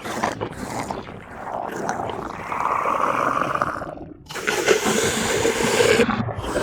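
Monster roar sound effects: a long growling roar, a short break about four seconds in, then a second, lower-pitched roar.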